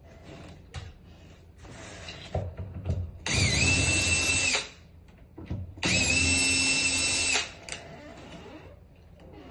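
Cordless power drill running in two bursts of about a second and a half each, a steady high whine that dips slightly in pitch as each burst starts, with small clicks and knocks of hand work between them.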